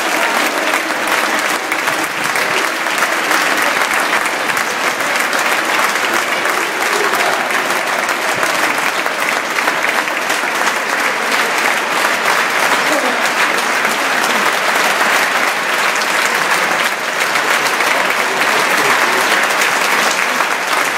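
Large stadium crowd applauding, a dense, unbroken clapping with voices of nearby spectators mixed in.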